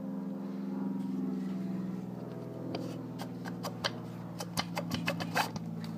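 Small, sharp metallic clicks and taps, irregular and several a second through the second half, as a piston held in a ring compressor is worked into the cylinder barrel of a Yamaha two-stroke jet ski engine. A steady low hum underneath fades out over the first couple of seconds.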